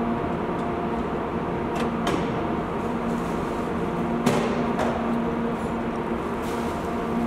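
Steady hum with a few fixed tones, broken by several clicks and knocks of a car door and a person climbing out of the car; the loudest knock comes about four seconds in.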